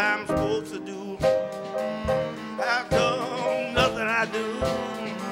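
Live blues band playing an instrumental passage: a saxophone plays wavering, held notes over keyboard chords, with a steady drum beat.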